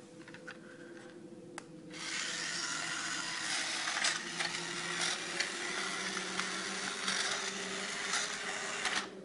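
Plastic toy train running along plastic track and shoving a toy-block wagon: a steady whirring rasp that starts about two seconds in, after a single click, and drops away briefly near the end.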